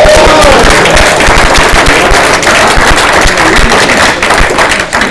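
Congregation clapping loudly, with a few shouts at the start, dying away near the end.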